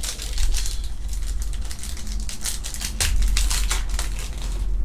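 Trading-card box packaging being handled and torn open: a dense run of crinkling and crackling.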